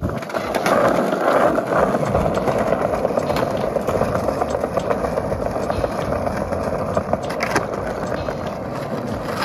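Skateboard wheels rolling over stone paving tiles, a steady rumble, with a couple of sharp clacks of the board near the end.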